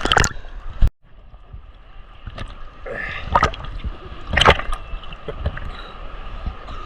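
Sea water splashing and sloshing right at the microphone, with several louder splashes. The sound cuts out abruptly for a moment about a second in.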